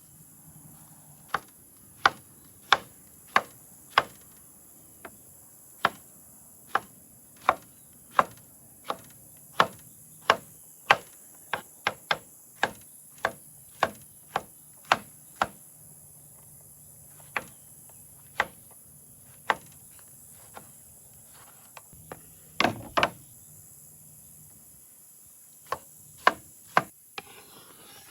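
Chopping strikes, sharp and regular at about three every two seconds for the first half, then slower and more irregular with a short flurry near the end, over a steady high insect buzz.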